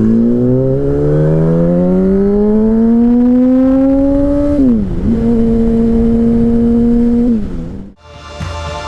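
Yamaha R1 sportbike's inline-four engine accelerating away: revs climb steadily for about four and a half seconds, dip sharply at an upshift, hold steady for about two seconds, then dip again. Near the end the engine cuts off abruptly and background music begins.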